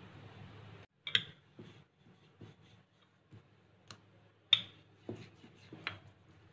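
Light, irregular taps and knocks of a rolling pin and bread slices being handled on a kitchen counter, about seven in all, the loudest about four and a half seconds in.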